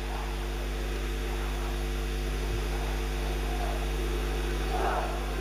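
Steady electrical hum with a stack of level buzzing tones over a faint hiss. Near the end, the voices of a large crowd swell in.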